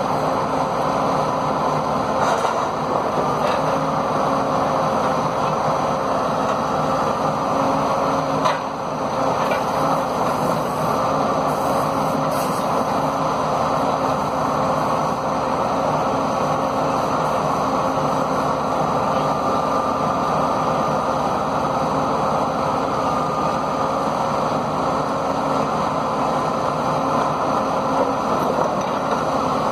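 Komatsu 895 forwarder's diesel engine and hydraulics running steadily under load, with a faint wavering whine, as the crane grapple handles logs. A single sharp knock comes about eight seconds in, and a few lighter clicks come around it.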